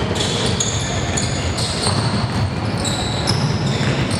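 Basketball shoes squeaking repeatedly on the gym floor as players run and cut, with a basketball being dribbled, over the steady noise of a large gym.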